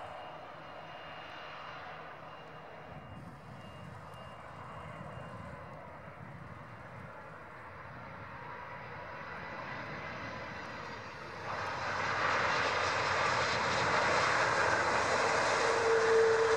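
Jet engines of an Airbus A330-200 (Rolls-Royce Trent 700) landing: a steady rushing that jumps suddenly much louder about eleven seconds in and stays loud, with a brief steady whine near the end.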